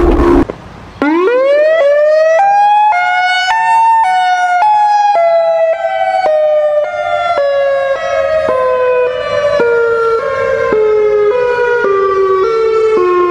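Emergency vehicle siren: after a short gap it sweeps up in pitch, then switches back and forth between two close pitches about twice a second, the whole pattern slowly sinking in pitch.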